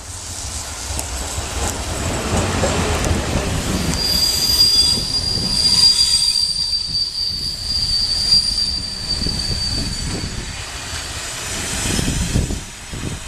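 Passenger train hauled by an electric locomotive passing close at speed: a rumble of wheels on rails that builds as it nears, with a high, steady squeal from about four seconds in until about ten seconds. Near the end the wheels clack over the rails as the last coaches go by.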